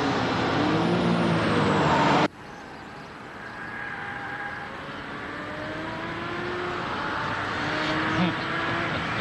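Ferrari F50's 4.7-litre naturally aspirated V12 running loud at high revs, cut off abruptly about two seconds in. Then the engine is heard further off, its revs climbing and growing steadily louder.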